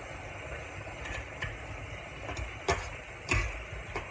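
Metal spatula scraping and knocking against an aluminium wok while pork is stir-fried, over a steady sizzle. There are several sharp clanks, the loudest two in the second half.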